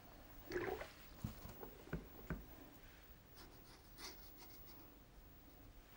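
Faint brushing and scrubbing of a wash brush picking up watercolour paint from a plastic palette, with a few light taps of the brush against the palette.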